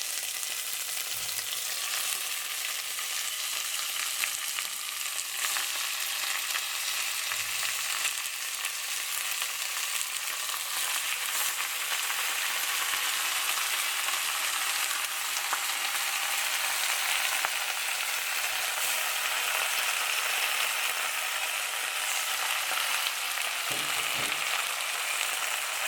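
Chicken pieces frying in hot oil with onions, garlic and ginger in a pan: a steady sizzle that grows a little louder partway through.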